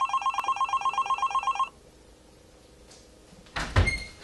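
Cordless home telephone ringing: a rapid electronic trill lasting about a second and a half. Near the end, a loud thump and rustle.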